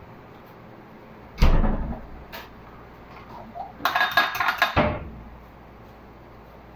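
A dull thump about a second and a half in as the refrigerator door swings shut, then about a second of quick clinks and knocks as an egg is rapped against a small glass bowl to crack it.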